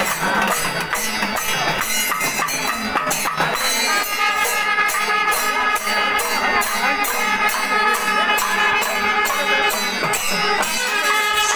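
Panchavadyam ensemble playing: timila and maddalam drums beating densely under regular ilathalam cymbal clashes. About four seconds in, long held tones join, the kombu horns of the ensemble.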